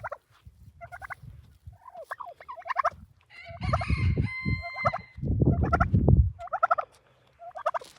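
Poultry calling: several short, rapid warbling calls in a row, with a longer, steadier call in the middle. A low rumble runs under some of the calls.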